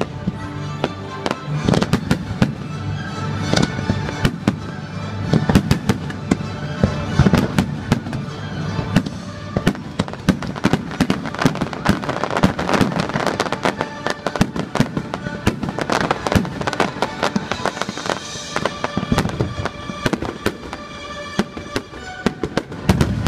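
Fireworks bursting in rapid, continuous succession, many sharp bangs and crackles, over music playing with the show.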